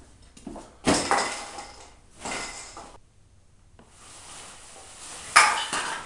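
A sudden thump about a second in, likely a kick at a body lying under a blanket, then scuffing and fabric rustling. Near the end there is a sharp, loud burst of rustling as a blanket or sleeping bag is thrown back.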